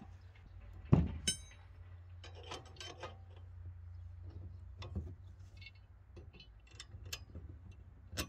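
Steel parts of a rotary tiller being handled during assembly: one loud metal clank about a second in with a brief ringing, then scattered lighter clicks and clinks as the blade extensions and their bolts are put in place.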